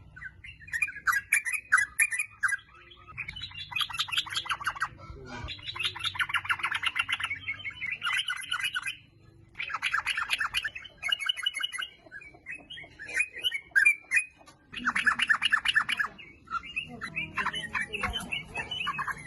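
Yellow-vented bulbul song: quick bubbly chattering phrases of one to two seconds, repeated with short pauses between them.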